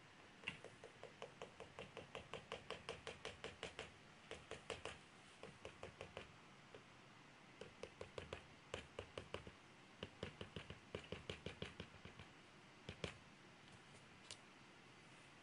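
Graphite pencil hatching on drawing paper: quick, even scratching strokes at about five a second, in runs with short pauses, stopping about 13 seconds in.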